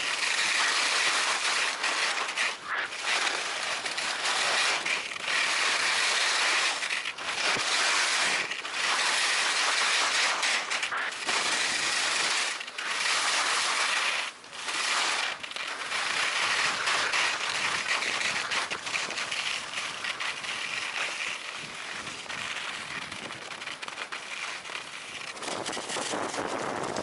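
Skis hissing and scraping over snow during a run, the sound dipping briefly every couple of seconds as the skier links turns, then running steadier and a little quieter near the end as the skis glide straight.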